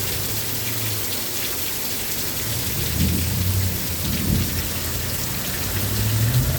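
Heavy rain pouring down in a steady hiss, with a low rumble of thunder rolling in about three seconds in and rising again near the end.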